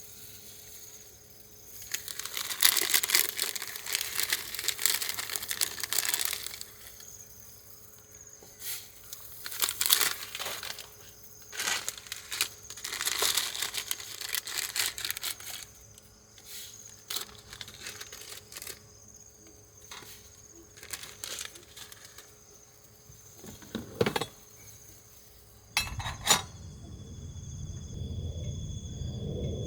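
Crinkling and rustling in irregular bursts, with scattered sharp clicks and knocks. Near the end a steady low hum with a faint high whine starts up.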